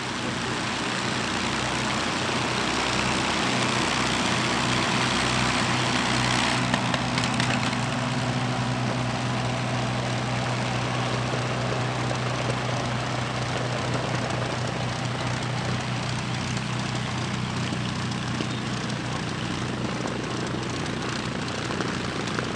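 Twin Rolls-Royce Merlin engines of a de Havilland Mosquito running steadily during a ground taxi run, a continuous propeller drone with a low hum beneath.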